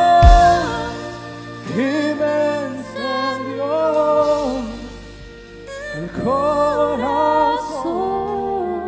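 Live slow worship song from a church band: a voice sings long, held phrases over keyboard and violin accompaniment.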